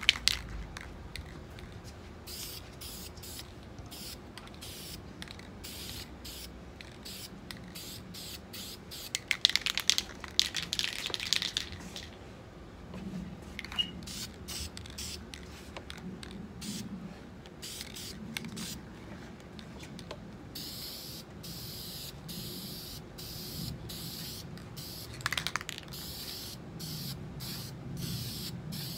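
Aerosol spray-paint can hissing in many short bursts as a guitar body is coated, with a cluster of loud rattling clicks about ten seconds in as the can is shaken, then a longer, steadier spray near the end.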